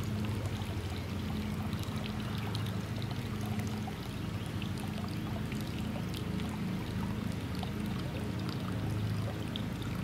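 Water pouring steadily into a pool from the solar water heater's return line, over a low steady hum.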